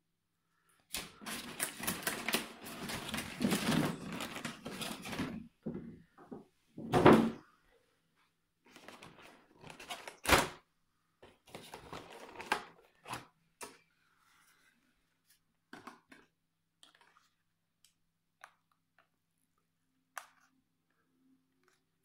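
Handling noise from a boxed quadcopter and its moulded plastic packaging. A few seconds of crinkling and rustling come first. Two sharp knocks follow, about seven and ten seconds in, then scattered light clicks as parts are lifted out of the tray.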